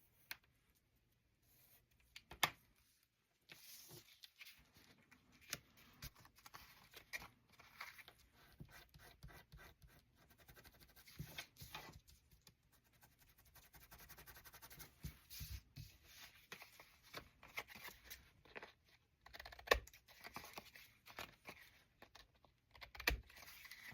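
Quiet paper-crafting handling: a couple of sharp taps in the first few seconds, then continuous scratching and rustling of paper with many small clicks and taps on the work table.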